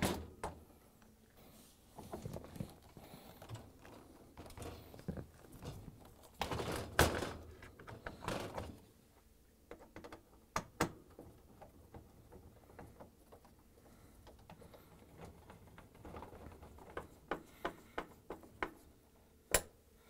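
Handling noises of a refrigerator's bottom freezer drawer door being fitted onto its slide rails and pushed shut: scattered clicks and knocks of plastic and metal, with a longer, louder scrape about seven seconds in and a run of sharp clicks near the end.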